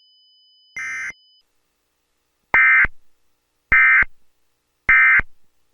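Emergency Alert System end-of-message (EOM) data bursts: short buzzing digital tone bursts, one softer burst about a second in, then three louder ones about a second apart. They signal the end of the emergency alert.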